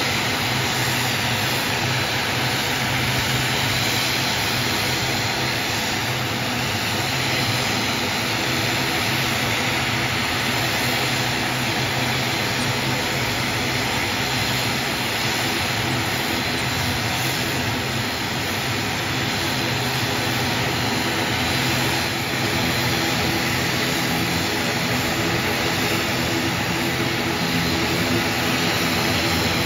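ATR 72 twin turboprop engines running on the ground, both propellers turning, giving a steady pitched drone over a broad rushing noise that holds the same level throughout.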